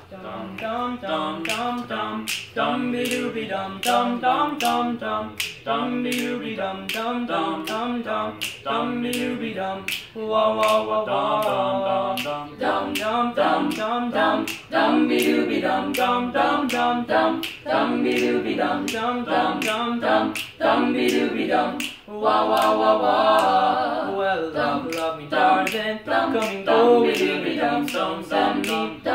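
A small mixed choir of young men and women singing a cappella in harmony, with finger snaps keeping a steady beat at about two a second.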